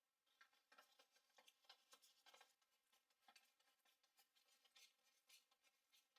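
Near silence, with faint scattered clicks and scratches, several a second.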